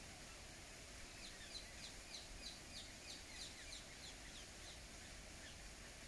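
A bird calling faintly: a run of short, high, downward-slurred notes, about three a second, starting about a second in and dying away near the end, over a steady low background hiss.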